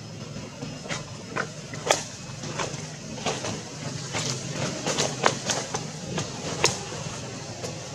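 Irregular crackling clicks of dry leaf litter, a dozen or so sharp snaps at uneven intervals, the loudest about two, five and six and a half seconds in, over a steady low hum.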